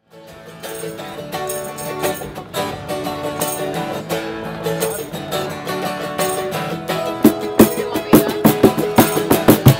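Acoustic guitar and mandolin playing the intro of a folk-rock song, fading in at the start. About seven seconds in, sharp rhythmic strikes come in and the music gets louder.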